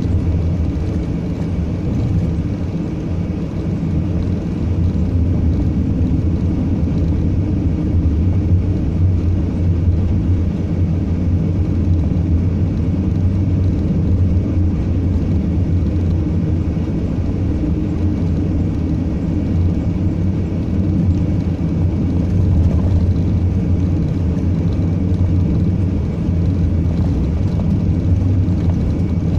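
A vehicle driving steadily: a continuous low rumble of engine and road noise that stays even throughout.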